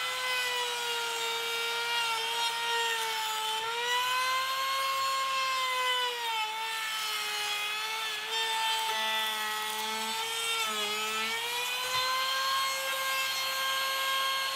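Electric trim router running at speed, cutting a full-depth rabbet around the inside edge of a wooden cabinet-door frame: a steady high motor whine whose pitch dips briefly a couple of times as the bit works through the wood.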